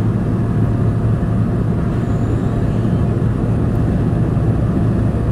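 Small private plane's engines running with a steady low drone, heard from inside the cabin as the plane rolls along the ground.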